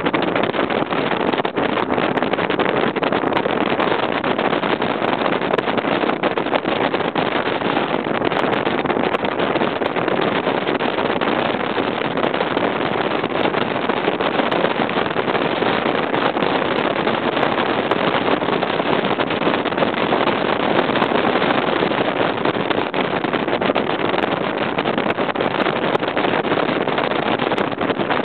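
Stratos bass boat running at speed on its Mercury 200 EFI outboard: a steady rush of wind and water noise over the engine, with wind on the microphone.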